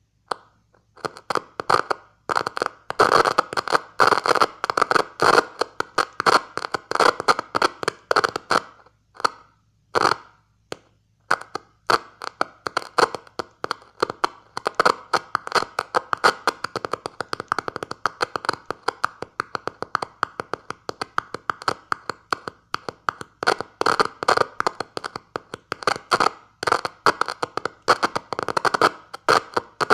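Dense, irregular clicking and crackling in bursts with a couple of short breaks, from two screwdrivers wired as switch contacts being tapped together to key Morse code through a homemade magnetic-amplifier circuit.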